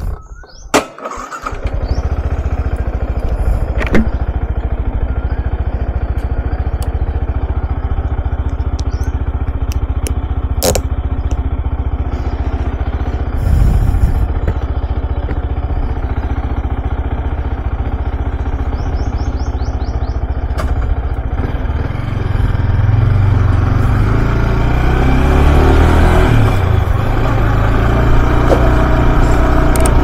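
Yamaha R15M's 155 cc single-cylinder engine starting about a second and a half in, then idling steadily, with a short throttle blip about halfway. Over the last third it gets louder and uneven as it is revved and ridden off.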